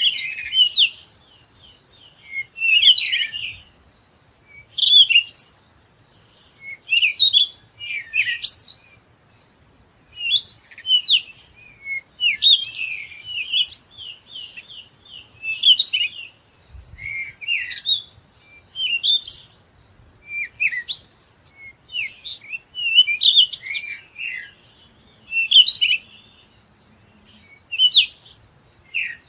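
A songbird singing: short, high phrases of quick chirps and sweeping notes, repeated about every two seconds.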